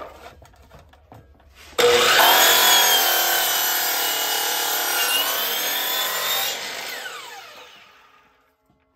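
DeWalt compound miter saw starting up about two seconds in and cutting through a pallet board with a steady whine. Near the end it is switched off and the blade winds down with a falling tone.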